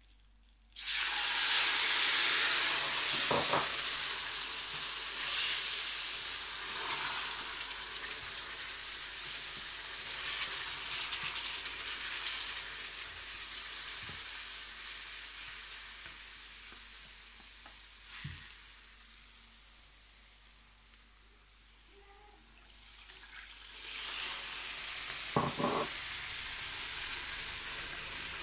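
Liquid poured into a hot pan of roasted semolina for suji halwa bursts into a loud sizzle about a second in, which slowly dies down as the mixture is stirred. A spatula knocks against the pan a few times, and the sizzling grows louder again near the end.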